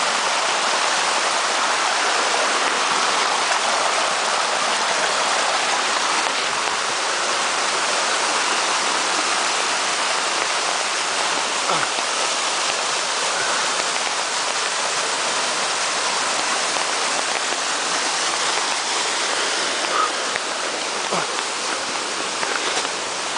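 Steady rushing of a creek and waterfall running high after heavy rain.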